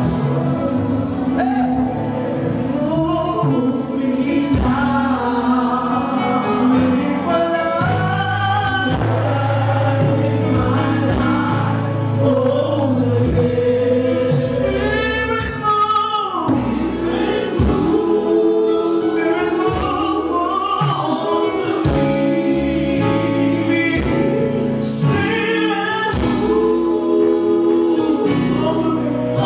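Live gospel praise music: a choir singing a flowing melody over steady low accompaniment, sounding a bit crackly because it was taken straight into the camera's own microphone.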